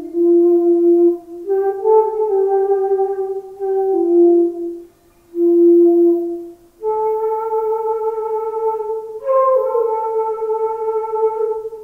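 Solo transverse flute playing a slow, meditative melody of long held notes. There is a short pause about five seconds in, then a longer sustained higher note with a brief upward flourish near the end.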